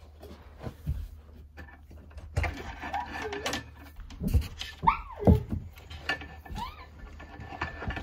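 Knocks and rustles of a small device and its cord being handled, with a toddler's short squealing vocal sounds about five seconds in and again near seven seconds, over a low steady hum.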